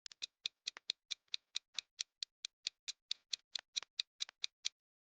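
Ticking clock sound effect used as a quiz countdown timer: fast, even ticks at about four or five a second that stop near the end.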